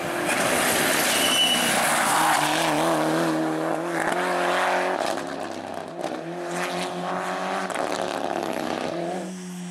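Race car at full throttle passing close by, its engine revving up through the gears with short dips at each shift, then drawing away.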